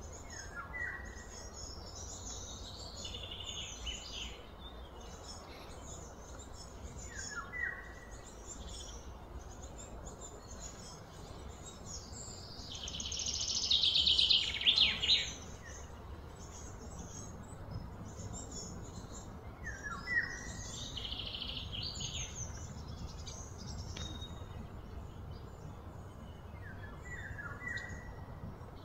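Birds calling outdoors. A short call is repeated four times, several seconds apart, among higher chirping. A louder, fast, rattling trill builds and cuts off near the middle, all over a low, steady background rumble.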